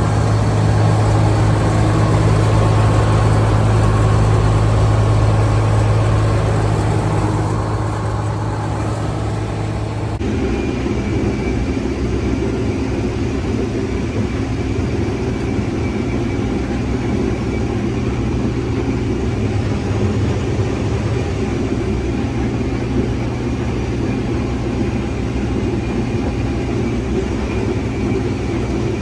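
Case IH 2388 combine's diesel engine idling just after a cold start, warming up. About ten seconds in, the sound changes: the deep steady hum drops back and a higher hum comes in.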